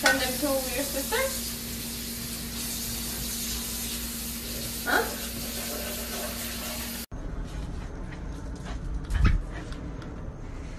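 A dog whining in a quick run of short, wavering cries, over a steady low hum, with one more rising cry about five seconds in. After a cut, light knocks and thumps.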